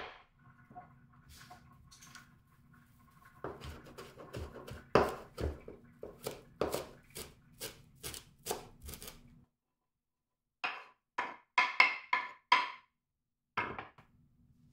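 Chef's knife chopping fresh parsley on a wooden cutting board: a run of sharp knocks, about two a second. After a short silence comes a quicker cluster of sharper knocks, then a single knock.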